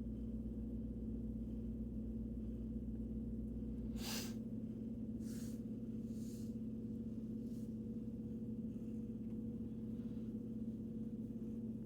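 A steady humming tone, with a few short soft hissing noises about four to seven and a half seconds in.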